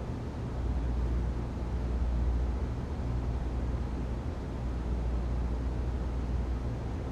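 Ventilation system running: a steady airy hiss over a deep, constant low rumble.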